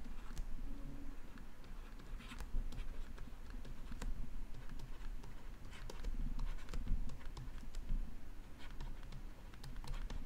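Stylus writing on a tablet screen: a run of light, irregular taps and scratches as words are handwritten.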